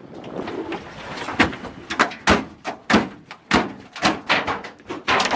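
Heavy thuds and knocks on a boat's metal deck and fish hold, starting about a second and a half in and coming irregularly about every half second.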